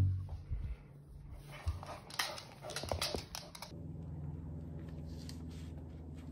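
Small clicks and rustles, then, about two-thirds in, a steady low hum sets in under the faint rustle of shoelaces being pulled and tied on canvas high-top sneakers.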